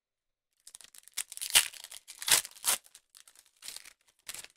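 Foil wrapper of a Pokémon TCG Brilliant Stars booster pack being torn open and crinkled: a run of short, irregular rustling tears, loudest about one and a half and two and a half seconds in.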